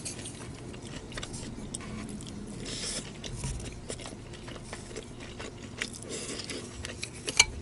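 Disposable wooden chopsticks clicking and scraping against a ceramic rice bowl while someone eats and chews, with small irregular clicks throughout and one sharper click near the end.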